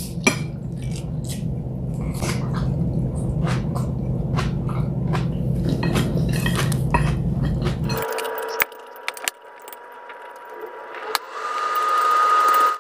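Eating sounds: wet chewing and chopsticks clicking against a plate and bowl, many short clicks over a steady low hum. About eight seconds in, the hum cuts off and a steady high tone comes in, stepping up in pitch and growing louder near the end.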